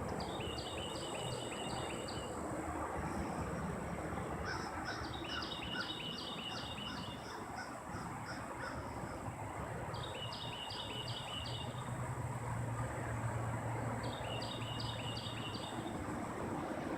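A songbird singing, four phrases of quick, high repeated notes a few seconds apart, over steady outdoor background noise. A low drone comes in for a few seconds in the second half.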